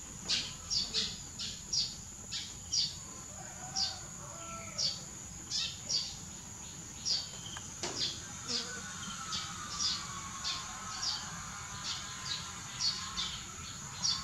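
A bird chirping over and over in short high calls, one or two a second, over a steady high-pitched insect drone.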